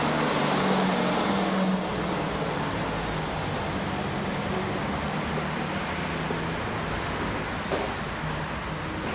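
Steady rumble of engine and road-traffic noise with a low hum, a little louder in the first two seconds.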